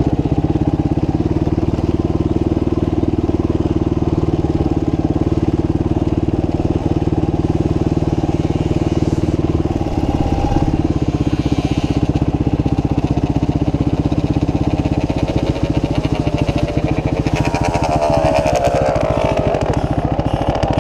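Motorcycle engine running steadily with a rapid, even firing beat; its note shifts about ten seconds in.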